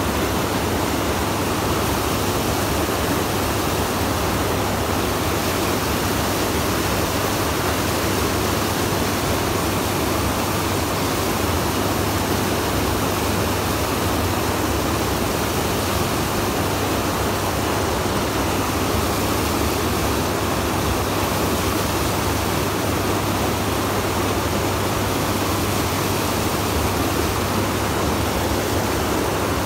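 Boat running at a steady speed: the motor's steady low hum under a loud, even rush of churning wake water.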